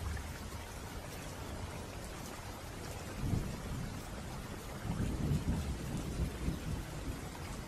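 Steady rain with low rolls of thunder, one about three seconds in and a longer one a couple of seconds later.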